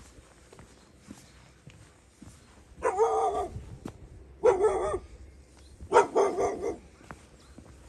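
A dog barking three times, each bark drawn out and about a second and a half apart.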